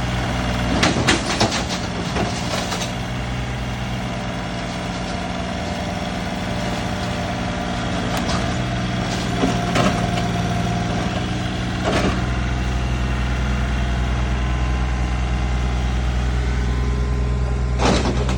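Excavator's diesel engine running steadily, with clusters of sharp knocks about a second in, around eight to ten seconds, at twelve seconds and again near the end.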